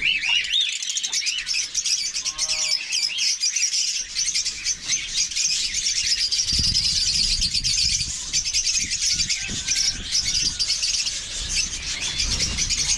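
A dense, continuous chorus of many small caged birds chirping rapidly at a high pitch. Low knocks and rumbles come from the wire cage being handled, once around the middle and again near the end.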